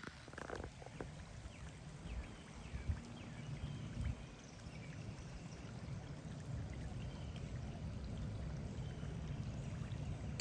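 Steady outdoor rush like flowing water, with a low rumble underneath and faint short high chirps.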